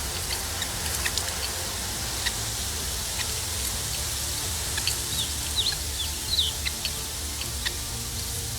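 Newly hatched water-bird chick peeping: scattered short, high peeps, with a few longer calls sliding down in pitch about six seconds in, over a steady low hum.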